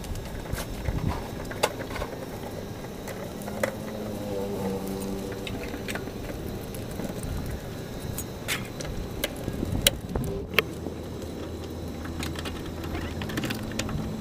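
Scattered small clicks and knocks of hand work on rubber fuel hoses and metal hose clips under a car. A faint low hum runs for a few seconds past the middle.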